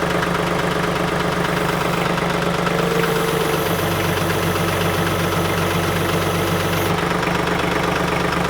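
TYM 2515H compact tractor's three-cylinder diesel engine running steadily; from about three and a half to seven seconds in, a lower steady hum joins it, then drops away.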